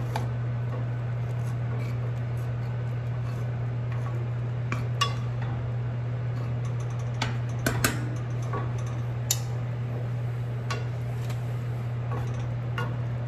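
Cooking utensils clinking and scraping against pots and pans as pasta is stirred in a boiling pot and sauce in a skillet, with a dozen or so sharp clinks scattered irregularly over a steady low hum.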